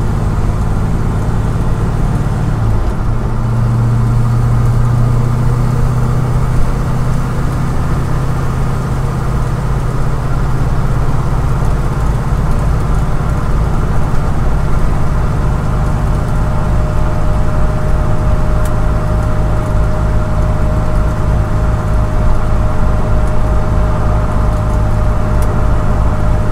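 Car heard from inside the cabin at highway speed: a steady drone of engine and road noise, whose low note shifts about three seconds in. From about halfway through, a thin steady whine rises above it from the Moser 12-bolt rear differential's newly replaced US Gear 3.91 ring and pinion: gear noise that the new gear set has not cured.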